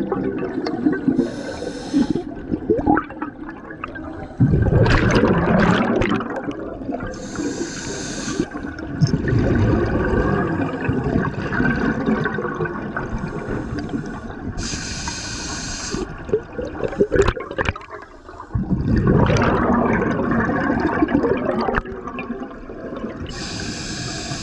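Scuba regulator breathing heard underwater. A short hissing inhale is followed by a long bubbling rush of exhaled air, and the cycle repeats several times, about every seven or eight seconds.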